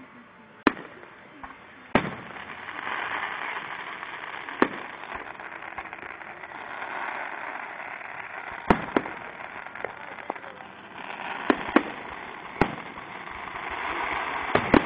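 Aerial firework shells bursting: a string of sharp, loud bangs a second or several seconds apart, coming closer together near the end, over a steady rushing background.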